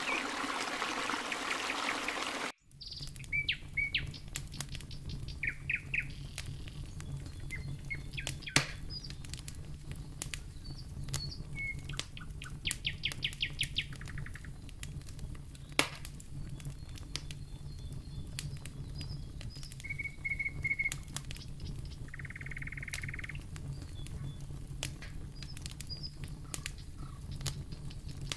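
Small songbirds chirping and giving quick trills, with scattered sharp clicks and a steady low hum underneath. It opens on a stream's running water, which cuts off abruptly about two and a half seconds in.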